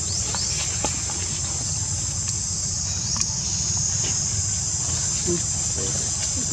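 Steady, high-pitched chorus of insects buzzing without a break, over a low rumble.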